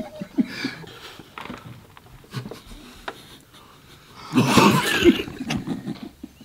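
Stifled laughter: short breathy giggles held back, then a louder, longer burst of laughter about four seconds in.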